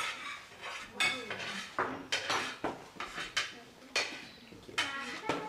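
Forks or spoons clinking and scraping on ceramic plates as several people eat cake, a series of sharp, irregularly spaced clinks.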